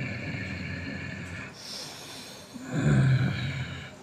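A man in a trance making animal-like non-speech vocal sounds: a long held low voiced sound, a breathy hiss about halfway through, then a louder low cry about three seconds in.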